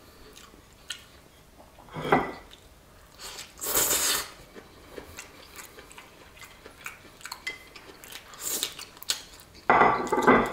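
Cutlery and ceramic plates clinking and scraping, with chewing in between. There are several separate clatters, the loudest about two, four and ten seconds in.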